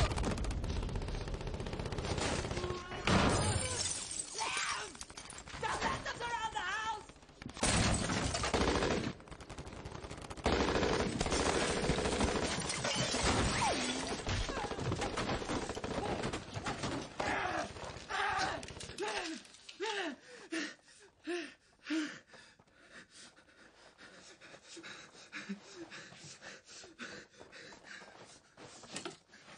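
Heavy gunfire in a TV drama shootout: rapid shots with glass and debris shattering and men shouting. About two-thirds of the way through it thins out to scattered single shots and a man's voice.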